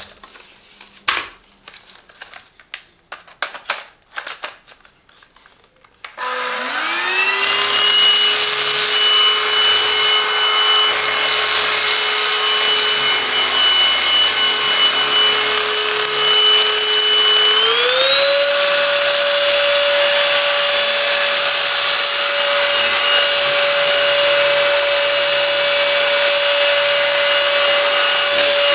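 A few light clicks of plastic parts being handled, then the Silvercrest SHAZ 22.2 F7 cordless cyclone vacuum's motor starts with a rising whine and runs steadily in handheld form with its rotating brush. About two-thirds of the way through, its pitch steps up once as it is switched from eco to turbo mode, and it runs on at the higher speed.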